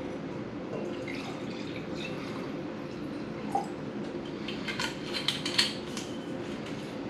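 Kitchen handling sounds: a few light clicks and taps of dishes or utensils, clustered about halfway through and again near five seconds, over a steady low background hum.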